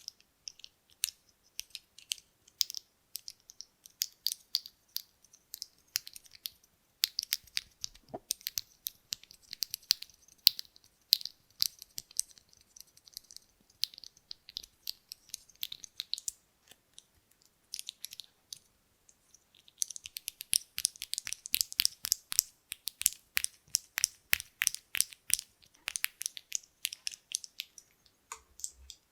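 Small buttons clicking and clattering against each other in quick runs of sharp little clicks. The clicks thicken into dense flurries about a quarter of the way in and again past two-thirds.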